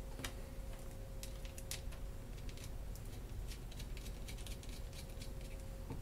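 Small machine screws and metal standoffs being handled and threaded together by hand, making faint, irregular light clicks and ticks, over a faint steady hum.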